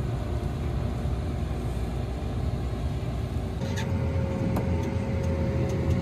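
Heavy farm machinery engine running steadily with a low rumble. About three and a half seconds in, the sound changes abruptly: a steady whine comes in, with a few clicks.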